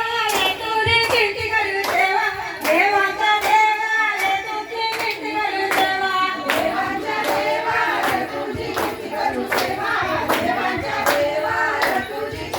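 A woman singing a traditional Marathi Ganpati devotional song, with hand claps keeping a steady beat about twice a second.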